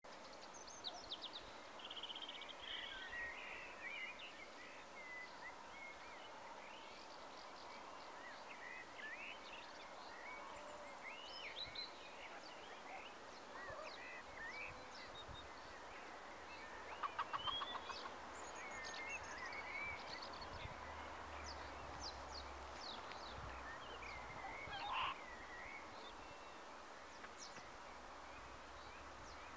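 Several birds calling and singing faintly: scattered chirps and warbled phrases over a soft hiss, with a rapid rattling trill about seventeen seconds in, the loudest moment.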